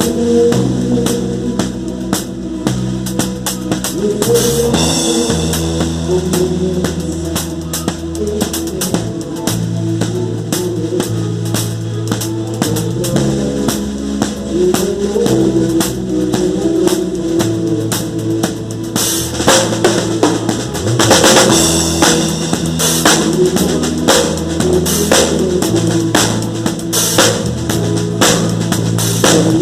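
Live gospel band playing instrumental music: a drum kit keeps a steady beat under sustained bass and chords, with cymbals swelling about two-thirds of the way in.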